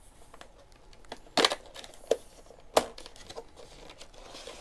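Cardboard phone box being handled and its lid flap pulled open: light scraping and rustling of the card, with three sharp snaps about a second and a half, two, and nearly three seconds in.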